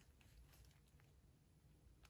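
Near silence, with faint handling noise and a couple of soft ticks as a metal ration tin is turned over in gloved hands.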